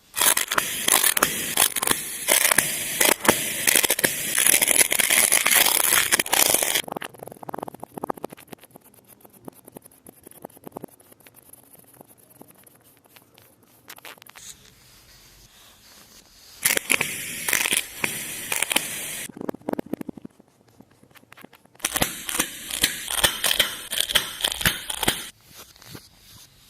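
Kinetic sand being cut and crushed: a dense, gritty crunching in three spells. The first runs for about seven seconds, then come two shorter spells later on, with fainter scraping in between.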